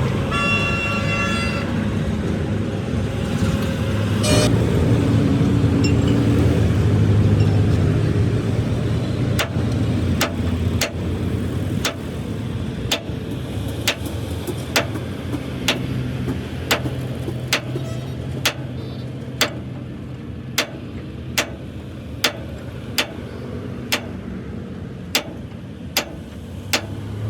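A motor vehicle engine running steadily, with a short horn toot near the start. From about a third of the way in, sharp clicks or taps repeat about once a second.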